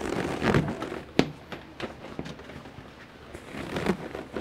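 Anti-cat seat cover being stretched and smoothed over a scooter seat by hand: fabric rustling and handling noise with a few sharp clicks and taps, the sharpest about a second in.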